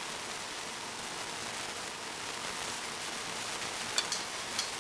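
Steady, even hiss of background noise, with two light clicks near the end as pecan halves slide off a small plate onto a pancake.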